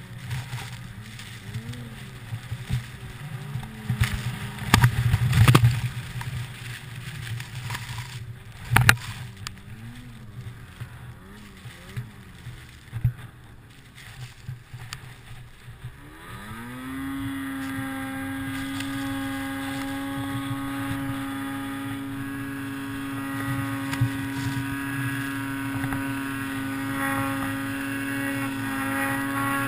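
Tuned 2008 Ski-Doo Summit 800 cc two-stroke snowmobile engine under way in deep powder, its pitch rising and falling with the throttle and a couple of loud thumps in the first half. About halfway it revs up and then holds a steady high drone at full throttle on the climb.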